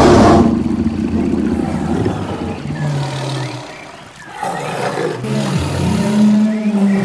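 A big cat roaring: a loud roar bursts in at the start and tails off over about four seconds, then a second drawn-out roar swells about halfway through.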